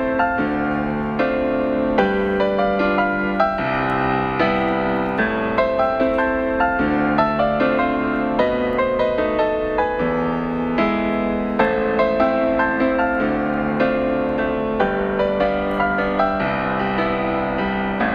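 Background music: a gentle piano tune of light, evenly paced notes.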